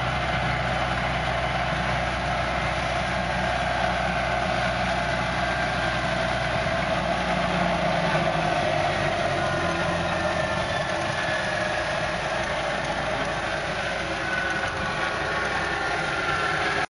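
Fiat 65-46 DT tractor's diesel engine running steadily while working a pneumatic seed drill, with a faint whine slowly falling in pitch near the end.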